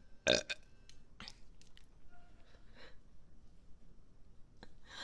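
A woman burping: one short, loud burp about half a second in, followed by a few fainter, shorter sounds.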